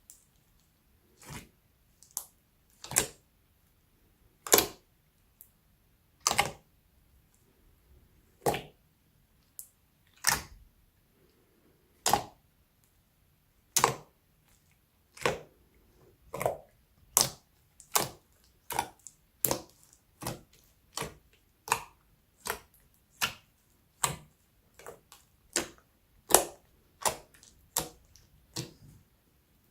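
Slime being kneaded and stretched, giving a series of sharp pops and clicks as air pockets burst. The pops come about every one and a half to two seconds at first, then faster, about one a second or more, in the second half.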